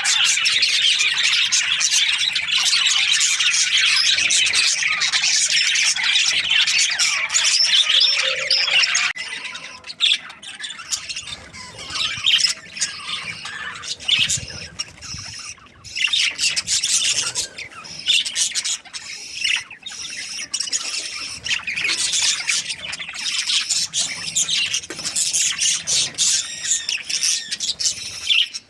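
A flock of budgerigars chirping and chattering. The chatter is dense and continuous for about the first nine seconds, then thins to sparser, separate calls.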